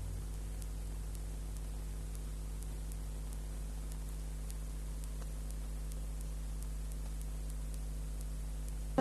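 Steady electrical mains hum over hiss, with faint regular ticks two or three times a second: a soundtrack gap in an old film-to-video transfer.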